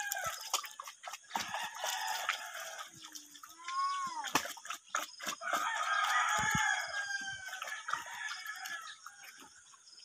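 Chickens calling, with a rooster crowing once about four seconds in, over scattered short clicks and smacks from a pig eating wet feed at a trough.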